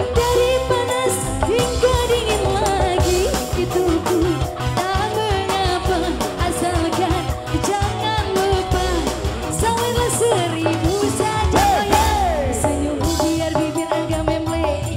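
Live band music, amplified through a PA, with electric guitars and drums under a woman singing into a microphone. Her melody line bends and wavers with ornamented turns over a steady beat.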